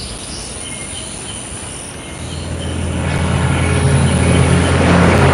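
Insects chirping, then from about two seconds in an aircraft's engine drone swells in and grows steadily louder as the plane approaches overhead.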